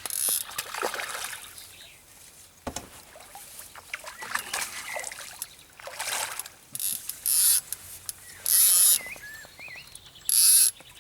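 Water splashing in several short bursts as a hooked tench thrashes at the bank edge while being brought to the net, with a few knocks and bird calls between.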